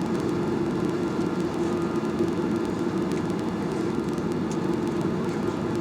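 Steady airliner cabin noise inside a Skymark Boeing 737-800: an even hum with a constant low drone.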